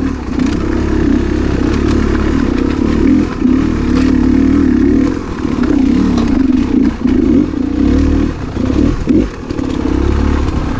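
Beta 300 RR two-stroke enduro dirt bike engine running under constantly changing throttle, revving up and easing off, with a brief drop a little past the middle before it picks up again.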